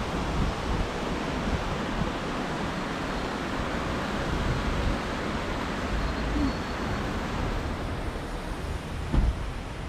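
Steady city street noise, a wash of traffic and wind buffeting the microphone, with a brief thump about nine seconds in.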